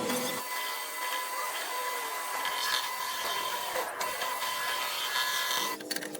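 A power tool running with a steady high whine over a hiss, cutting off sharply near the end.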